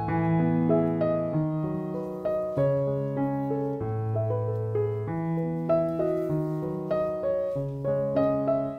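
Background piano music: a slow melody of single held notes over a steady bass line.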